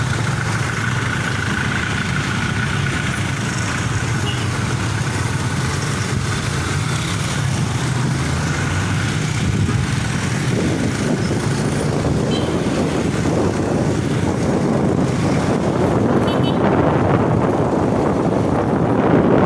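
Motorcycle engine running steadily in street traffic. From about halfway through, wind buffets the microphone as the bike moves off and gathers speed.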